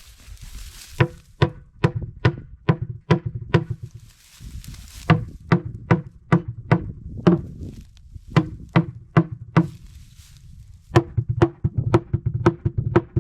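Hammer tapping repeatedly on a plywood bin cover, about two to three sharp knocks a second in short runs with brief pauses, each knock with a slight ring and a faster run near the end. The tapping marks through the plywood where the holes are to be drilled.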